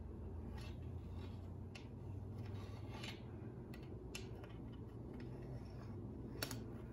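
A few faint ticks and light rubbing from a pencil being run around the rim of a metal pizza pan laid on fabric, over a low steady hum.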